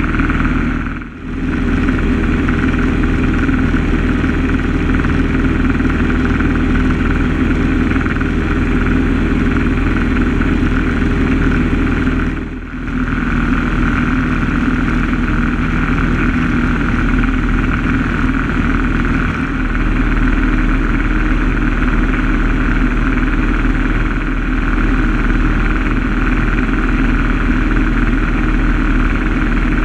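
Single-engine light aircraft's piston engine and propeller droning steadily in the cockpit during cruise flight. The level dips briefly twice, about a second in and again around thirteen seconds.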